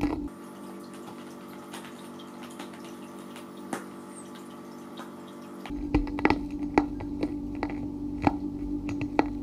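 Scattered light taps and clicks as cats move around and against a clear glass vase lying on its side, over a steady low hum. For a few seconds in the middle the sound is fainter, with fewer taps.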